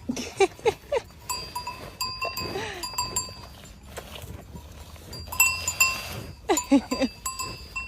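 Bells on farm animals clanking again and again, with short bleating calls among them.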